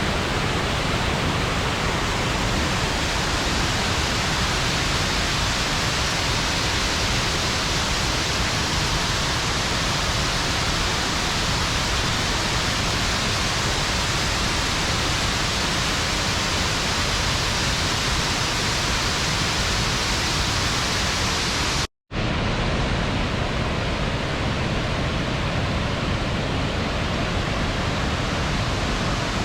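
Waterfall: a steady rush of falling water, broken once by a sudden, very short silent gap about 22 seconds in.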